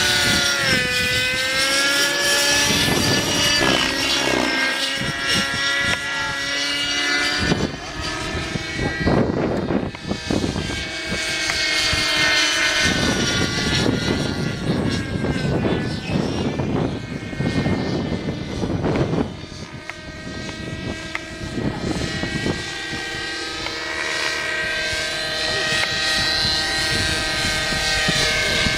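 Nitro glow-engined radio-controlled helicopter flying aerobatics, its engine and rotor whine gliding up and down in pitch as the manoeuvres load the rotor. Repeated rushing swells come from the Thunder Tiger 600mm flybarless main blades.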